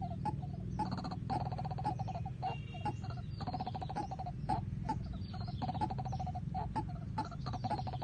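White-breasted waterhens calling: bouts of rapid notes repeated at one pitch, over and over, with scattered clicks and a low steady hum underneath.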